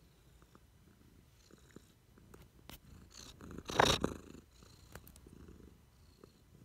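Domestic cat purring softly while being stroked. About three and a half seconds in, a loud brushing rustle as the cat rubs against the microphone.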